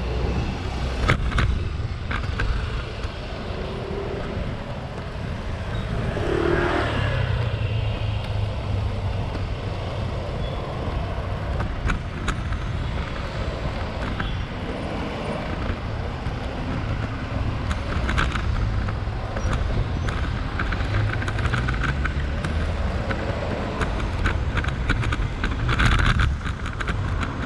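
Street traffic: passing cars over a steady low rumble, with a few short clicks.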